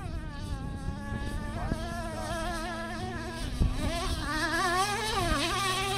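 Small engine of a radio-controlled truck buzzing as it drives, its revs rising and falling throughout.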